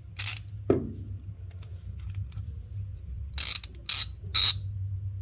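Freshly reassembled, greased 72-tooth 1/2-inch ratchet being swung back and forth, its pawl clicking in short, fast swipes: one near the start and three in quick succession past the middle. A single low knock about 0.7 s in.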